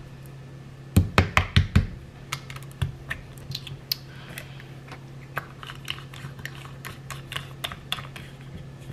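Plastic cap of a squeeze bottle of ketchup being worked open. A quick run of about six loud clicks and knocks comes about a second in, then scattered light plastic clicks as the cap comes off, the seal is dealt with and the cap is screwed back on.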